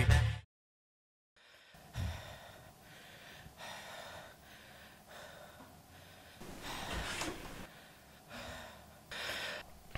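Background music cuts off in the first half-second; after a second of silence, a boy breathes heavily and out of breath, in a few loud breaths one to two seconds apart, with a couple of soft thumps.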